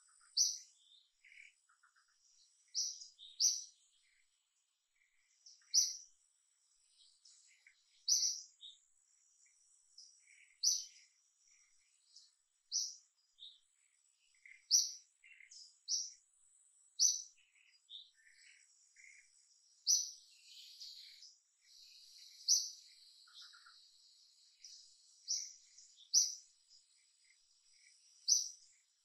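Forest birds calling: a short, high, sharp note repeated about every two seconds, with softer scattered chirps between. Behind them runs a thin, steady, high insect drone.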